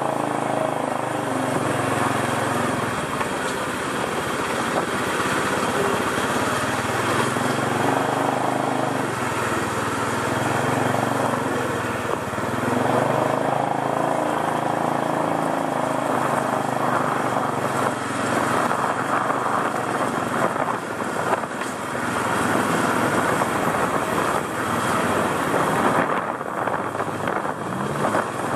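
Small motorcycle engine running steadily while ridden down a street, its pitch shifting slowly with speed, over a rushing noise of wind and traffic.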